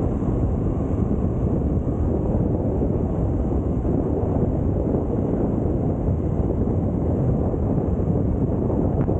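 Steady low rush of wind buffeting the microphone, with a rumble underneath, as heard when recording from a moving vehicle.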